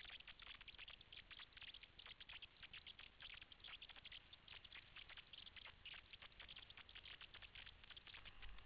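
Faint, irregular crackling: many small clicks a second, coming in uneven clusters.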